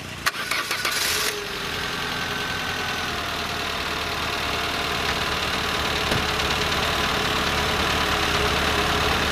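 Peugeot 205 petrol engine idling unevenly, a small car running less than perfectly with an uncured misfire. A click and a short burst of louder noise come in the first second, then the engine sound holds steady and slowly grows louder.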